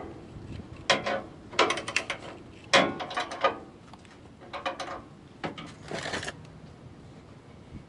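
Socket ratchet clicking in several short runs on a bumper mounting bolt, as the bumper is being taken off. About five and a half seconds in, a short hiss of PB Blaster penetrating oil sprayed from an aerosol can onto the bolt.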